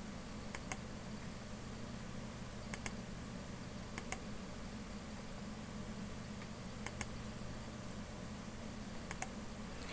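Computer mouse button clicking, faint, about five times in quick press-and-release pairs, over a steady low electrical hum and hiss of room tone.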